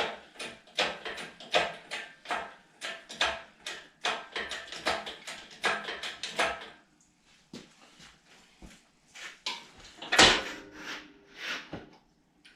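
Hard objects being handled, clattering and knocking: a quick series of sharp knocks for about the first seven seconds, then scattered knocks with one loud bang about ten seconds in.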